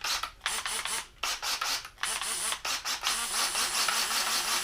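Handheld power tool run in a string of short bursts, about two a second, then held running steadily from about three seconds in.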